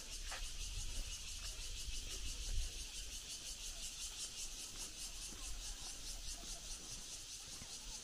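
A steady, high-pitched chorus of insects, finely pulsing, over a low rumble, with a soft thump about two and a half seconds in.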